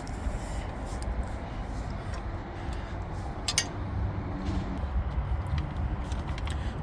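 Steady low background rumble with a few light clicks, the sharpest about three and a half seconds in.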